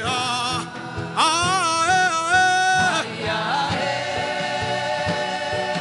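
Gospel worship music: a voice holds long, wavering sung notes over sustained keyboard chords and a steady drum beat.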